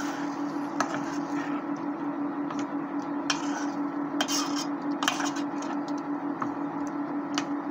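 A metal spoon stirring thick sauce with pork pieces in a stainless steel pot, giving scattered scrapes and clinks against the pot's side, over a steady hum.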